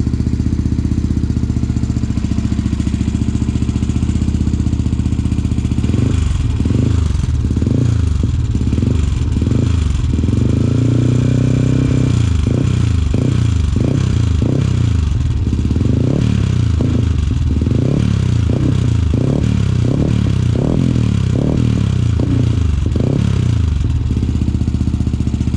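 Yamaha WR155R's single-cylinder four-stroke engine running through a Radamel Racing exhaust with its sound valve open (racing mode) and an open air filter. It idles steadily, then from about six seconds in is revved in a rapid string of short throttle blips, about two a second, with one longer rev around ten seconds in, and settles back to idle near the end.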